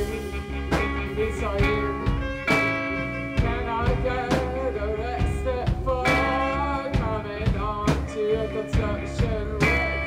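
Live rock band playing, with drums keeping a steady beat under bass guitar and a wavering saxophone or vocal melody line.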